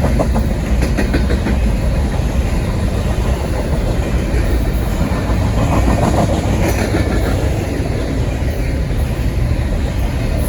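Intermodal well cars carrying shipping containers rolling past in a long freight train: a steady rumble, with wheels clicking over the rail about a second in.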